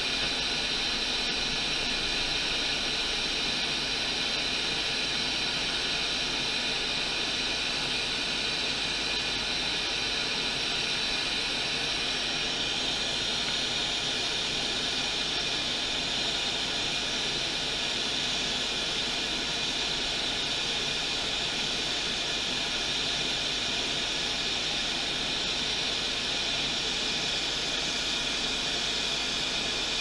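Hot air rework station blowing a steady hiss of hot air, preheating a graphics card's circuit board so that the connector's solder melts for desoldering. The hiss is slightly stronger from about twelve seconds in.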